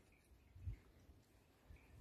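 Near silence: room tone, with one faint, brief low bump about two-thirds of a second in.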